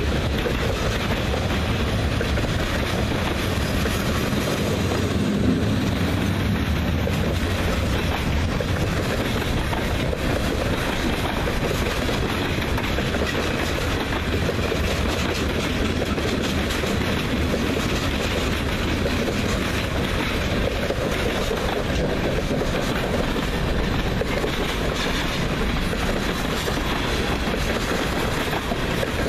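Freight cars of a mixed freight train (tank cars, boxcars, covered hoppers) rolling past steadily: the continuous noise of steel wheels running on the rails.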